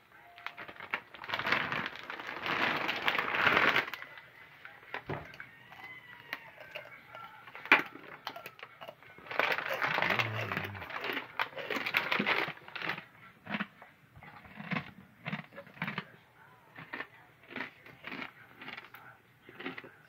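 Bag of pork rinds crinkling and rustling in loud bursts, then short crunches about twice a second as the hot-sauce-coated pork rinds are chewed.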